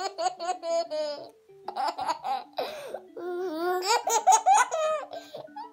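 High-pitched laughter in quick rhythmic runs of giggles, over quiet background music.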